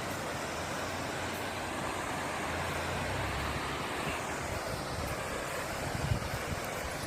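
Waterfall: water falling and splashing in a steady, even rush of noise, with a few low thumps about six seconds in.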